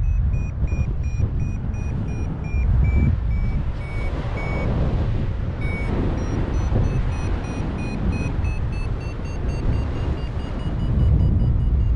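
Paraglider's variometer beeping over heavy wind noise on the microphone. Short beeps come about three a second. The pitch sags and the beeps break off for a second or two near the middle, then start again and rise steadily higher: the vario signalling that the glider is climbing in lift, more strongly as the pitch rises.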